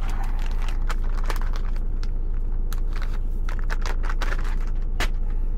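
Rustling and a run of small sharp clicks of a wet-wipe pack being hunted for and handled, with one louder click about five seconds in, over the steady low hum of the truck idling around the cab.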